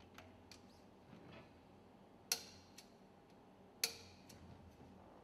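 Torque wrench on the screws of a large marine engine piston: two sharp metallic clicks about a second and a half apart, with faint ticks in between.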